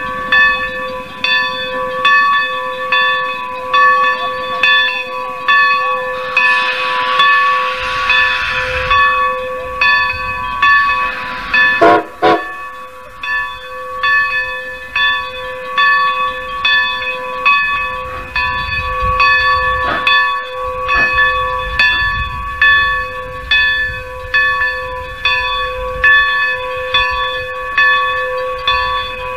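Steam locomotive bell ringing steadily, struck over and over. A burst of steam hiss joins a few seconds in, then a single sharp clank about twelve seconds in, and a low rumble underneath in the second half.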